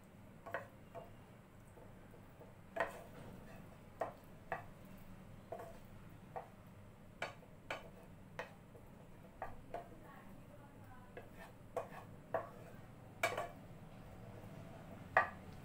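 Wooden spatula stirring chicken pieces in a non-stick frying pan, knocking and scraping against the pan in irregular clicks.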